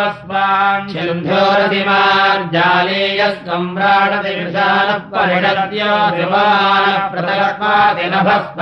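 A voice chanting a Sanskrit Vedic verse in steady recitation, the pitch held mostly level with short rises and falls between syllables.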